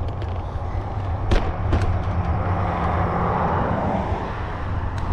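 A motor vehicle passing on the road, its engine hum and tyre noise swelling to loudest a little past the middle and then easing, over a steady low wind rumble on the microphone. A couple of sharp clicks come about a second and a half in.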